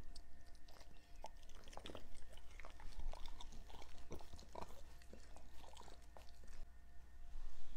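Two dogs chewing and licking a small piece of food off a tabletop: irregular wet smacks, clicks and crunches.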